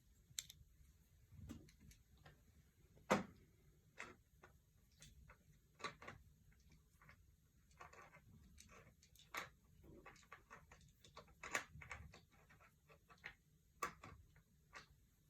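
Faint, irregular clicks and knocks of camera gear being handled: a telescoping aluminium monopod being opened out and extended, its sections and fittings clicking.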